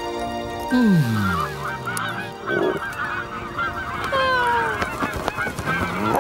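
A flock of cartoon geese honking, many short overlapping calls, with a pair of longer downward calls about four seconds in. Just before the honking starts, a loud deep tone slides down in pitch.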